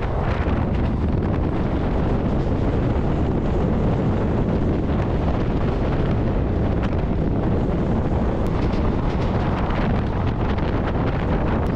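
Passenger train running at speed: a steady rumble of wheels on track, with wind buffeting the microphone.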